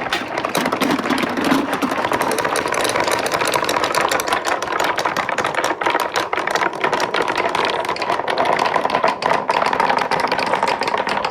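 Many marbles rolling and clattering down a stainless steel marble-run track in a dense, continuous rattle of clicks, with a faint ringing hum from the rolling balls.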